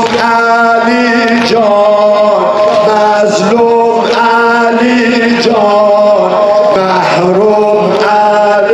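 Male voices chanting a Persian noha, a Shia mourning lament, in a slow melody with long held notes. Chest-beating slaps (sineh-zani) mark the beat every couple of seconds.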